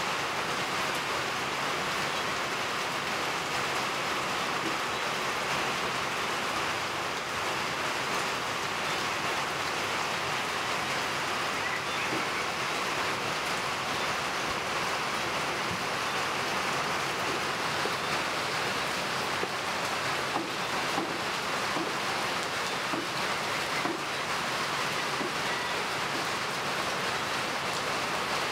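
Steady rain falling, an even hiss with no let-up, with a few faint knife taps on a wooden cutting board in the second half.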